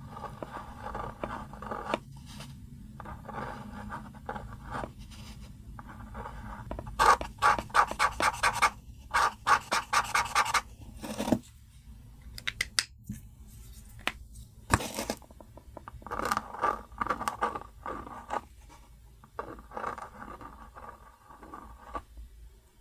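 Felt-tip marker nibs scratching back and forth on a white cardboard box as colour swatches are laid down. The quick scribbling strokes come several a second and are loudest for a few seconds about a third of the way in.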